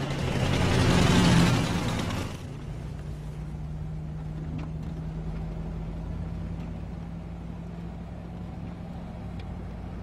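A car drives past, its engine and tyres swelling to a loud whoosh that ends abruptly about two seconds in. Then a steady low engine hum, as heard from inside the moving car.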